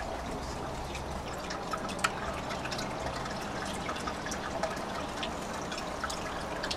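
Crosley record player: a steady low hiss with faint, irregular ticks and crackle, the surface noise of a vinyl record as the tone arm is set down, with one sharper tick about two seconds in.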